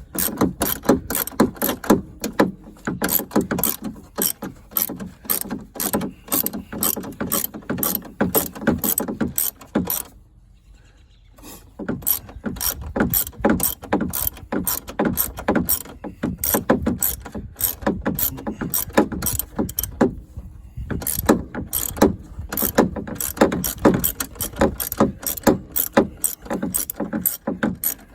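Hand ratchet wrench clicking rapidly in quick back-and-forth strokes as a hood bolt is backed out. It pauses twice, about ten and twenty seconds in.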